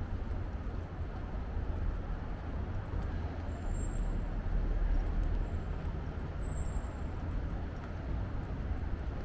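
Urban street ambience: a steady low rumble of road traffic, swelling a little midway as a vehicle passes, with two brief faint high squeaks.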